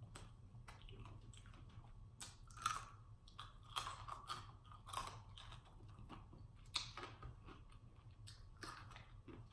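Close-up chewing and biting of chicken wings, faint, with irregular short clicks from the mouth and teeth; the loudest come about three, four, five and seven seconds in.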